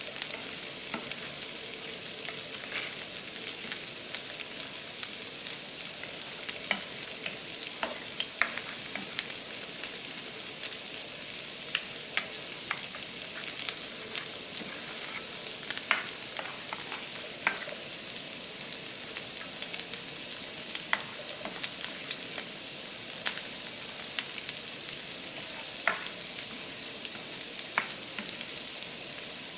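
Steady frying sizzle from eggs and chopped ham in a stainless steel skillet, stirred with a white spoon that now and then scrapes and clicks against the pan.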